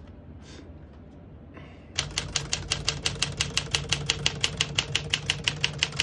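1957 Tower President portable manual typewriter being typed on: a fast, even run of key strikes, about seven a second, starting about two seconds in. It sounds not too loud and a little muffled, like a well-oiled machine in good working order.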